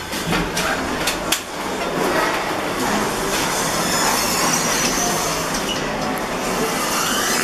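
Lift car running with a steady noise, with a few sharp clicks in the first second or so, as it stops and its doors slide open.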